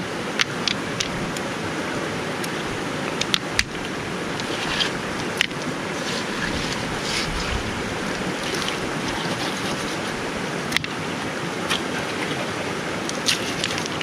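Steady rush of a small spring-fed stream running over stones, with scattered sharp clicks of wet stones being shifted as hands dig a muddy pool.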